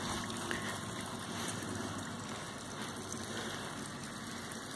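Faint, steady outdoor background noise with no distinct sound standing out.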